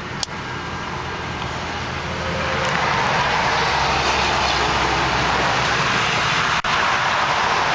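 Wind buffeting the microphone, swelling to a steady rush about two and a half seconds in, over a low hum. A single click sounds just after the start.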